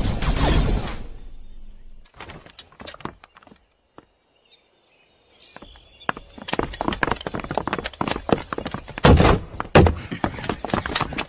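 Film sound effects: a loud swell fades out in the first second, then scattered knocks. From about six seconds in come quick running footsteps and thuds, with two heavy hits near the end.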